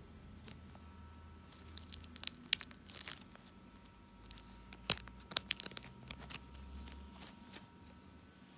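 Clear plastic binder pocket pages crinkling and crackling as they are handled and turned, in a string of sharp, irregular crackles through the middle, loudest about halfway.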